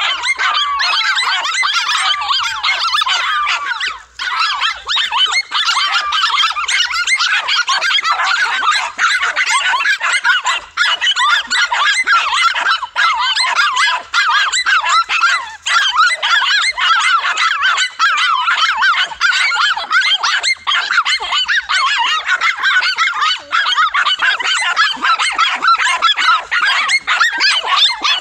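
Several dogs barking over one another at a monitor lizard they have cornered, a frantic chorus of high yaps and barks that hardly ever pauses.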